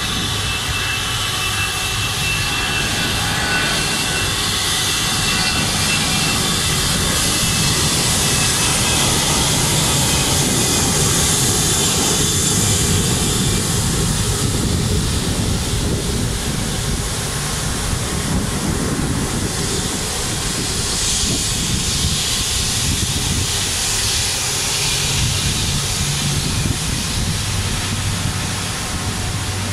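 Jet engines of a twin-engine widebody airliner running at taxi power: a steady rushing whine with a low rumble underneath. It grows a little louder around ten seconds in as the aircraft passes closest, then eases.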